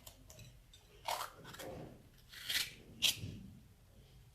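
Pieces of fresh pepper being pushed and squeezed into a jar to fill it, with three short, sharp scraping sounds and softer rubbing between them.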